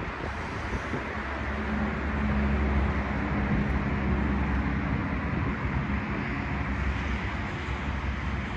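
Steady urban background noise with the low hum of a heavy motor vehicle's engine that grows louder about two seconds in and fades again near the end.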